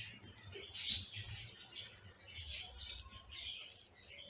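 Newborn kittens mewing: several short, high-pitched squeaks, the loudest about a second in.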